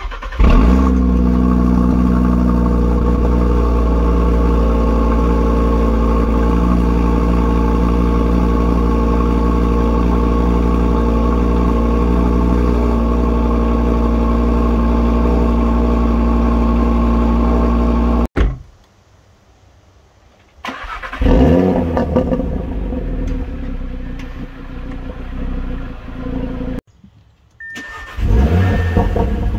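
Audi RS3's turbocharged five-cylinder engine cold-starting through its exhaust: it catches with a loud flare and settles into a steady high cold idle. The sound breaks off abruptly about two-thirds of the way in. Two more start-ups follow, each flaring and then easing down.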